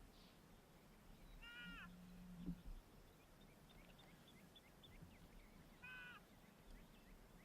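Electronic predator call playing a short animal distress cry twice, each one a brief cry that falls in pitch at the end, repeating every few seconds. A soft knock comes about two and a half seconds in.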